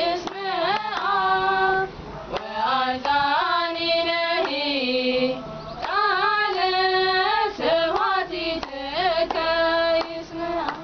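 Three women's voices singing an Eritrean Orthodox mezmur (hymn) together, unaccompanied, with hand claps keeping time.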